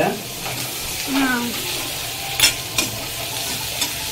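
Onions and capsicum sizzling as they fry in oil in a kadhai, stirred with a spatula. The spatula clinks sharply against the pan twice about two and a half seconds in.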